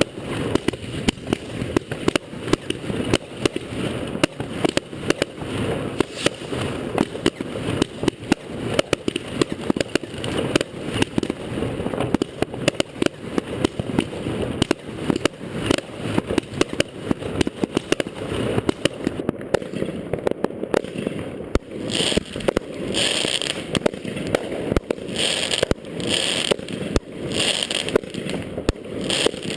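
New Year's Eve fireworks: a dense, irregular string of firecracker bangs, several a second. From about three-quarters of the way in, short hisses mix in among the bangs.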